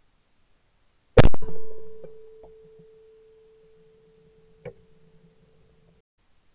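A single shotgun shot at a flying clay target about a second in, heard from a camera mounted on the gun, followed by a steady ringing tone that lasts several seconds and a small sharp click near the end.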